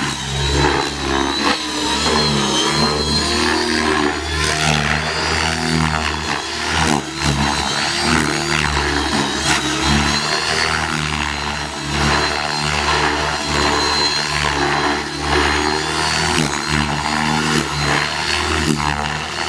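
Radio-controlled aerobatic helicopter flying stunts: a steady drone of its motor and spinning rotors, with a high whine that wavers up and down in pitch as it manoeuvres.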